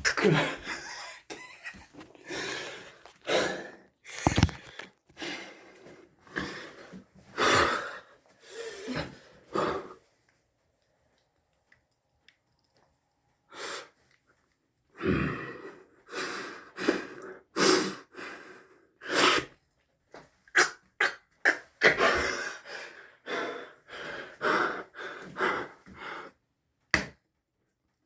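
A man breathing hard and straining in short, forceful exhalations as he squeezes an egg in his fist, with a pause of several seconds in the middle.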